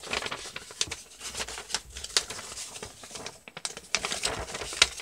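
A sheet of paper being folded and creased by hand into a paper airplane, with irregular rustling and crinkling and a sharp crackle just before the end.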